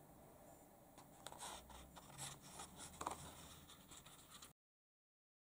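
Faint rustling and soft scrapes of a thin paperback picture book's pages being handled and turned as the book is closed.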